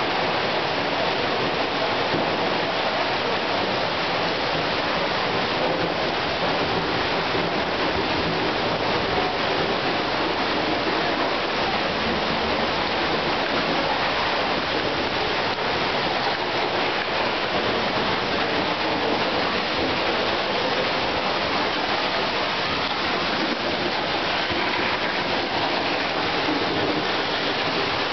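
North Falls waterfall's falling water, a steady, unbroken rush.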